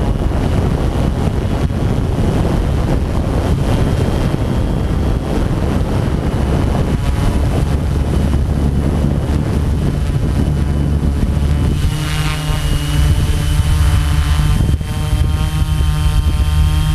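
Multicopter drone's electric motors and propellers running, picked up on the drone itself: a dense rush of propeller wash and wind at first, then about twelve seconds in the rush drops and a steady whine of several tones comes through.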